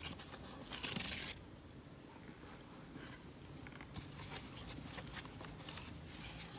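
Small wood cooking fire burning damp firewood that is slow to catch, giving faint scattered crackles, with a short hissing rasp about a second in.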